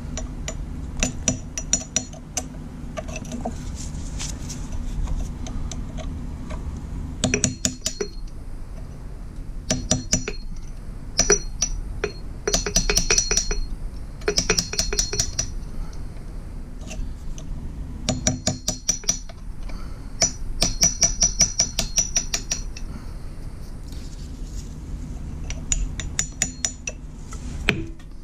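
Hammer tapping a punch against a broken-off bolt in the cast iron engine block of a Jeep 4.0 inline-six, driving it round to work the sheared bolt loose. The strikes come in bursts of quick, ringing metallic taps, with short pauses between bursts.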